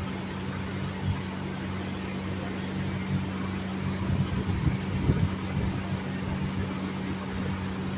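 A steady low electrical hum under a hiss of room noise, with a few faint soft knocks.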